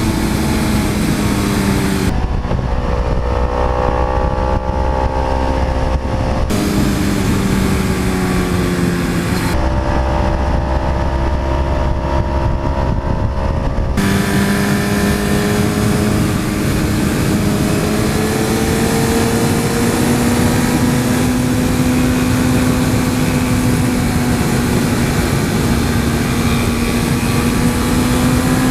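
Suzuki GSX-R 1000 with a Yoshimura R-77 full exhaust running at speed under wind rush, its engine note climbing slowly over the last half. Twice, for about four seconds each, the sound switches to a duller onboard track of the Kawasaki Ninja 300's engine under a deep wind rumble.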